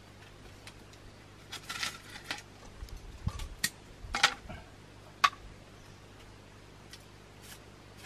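Bamboo strips being handled and worked by hand: a scattered run of taps, scrapes and clicks, ending in a single sharp crack about five seconds in.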